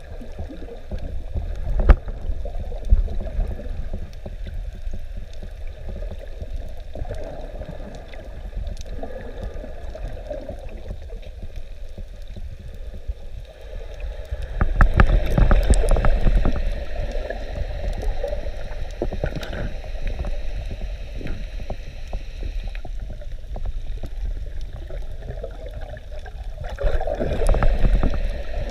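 Underwater sound: a steady low rumble of moving water with faint scattered crackling, and two louder bursts of gurgling bubbles, about halfway through and near the end, from a diver exhaling.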